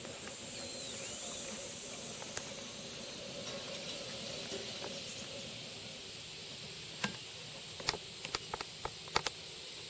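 Steady outdoor hiss of summer insects. From about seven seconds in, a string of sharp, short clicks and taps sounds close by.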